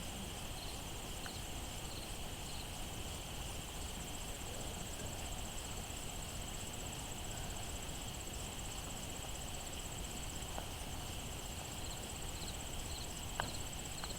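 Steady outdoor insect chorus of crickets trilling. A run of short, evenly spaced chirps comes about a second in and again near the end, with a sharp click shortly before the end.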